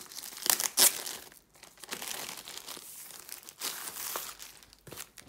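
Clear plastic sleeve around a rolled diamond painting kit crinkling as it is handled and pulled at, in irregular rustles with the loudest crackles about half a second to a second in.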